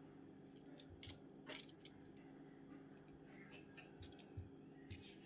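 Faint near-silence with a few soft, scattered crackles of crushed Doritos chips as chicken pieces are pressed into the coating by hand, over a low steady hum.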